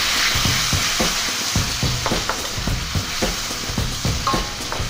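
Spice paste of shallots, garlic and chilies sizzling in hot oil in a metal wok, just after a splash of water has gone in. A slotted metal spatula scrapes and knocks against the wok about three times a second as it stirs.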